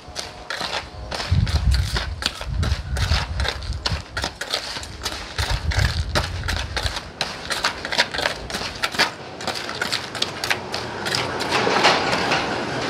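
A metal spoon stirs and scrapes a gritty mix of sand and worm castings around a plastic basin: rapid scratching and clicking of grit against the plastic, with a low rumble through the first half.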